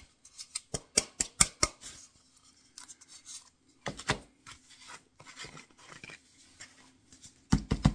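Quick, sharp scratchy strokes in fast runs, from hand work applying paint and flocking inside a small walnut box.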